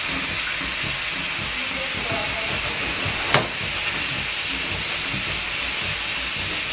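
Cubes of pork sizzling steadily in sunflower oil in a frying pan, with one sharp click about three and a half seconds in.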